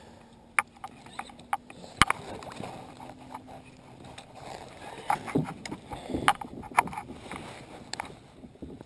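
Baitcasting rod and reel being cast and worked from a plastic kayak: sharp clicks and knocks of the reel and rod against the boat, with soft handling noise between.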